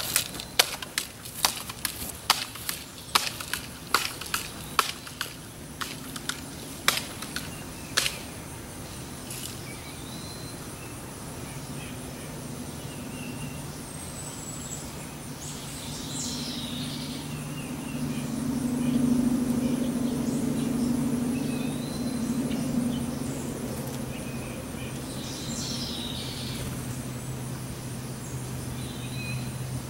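Footsteps crunching through dry yard litter, a quick run of sharp crackling clicks over the first eight seconds. After that a low motor hum swells and fades around the middle, with a few short, high bird chirps.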